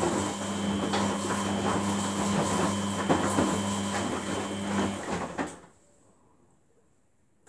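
Samsung WF80F5E0W4W front-loading washing machine in its wash phase: the drum turns the wet laundry with a steady motor hum and sloshing. About five and a half seconds in the drum stops and the machine goes nearly silent, pausing between turns.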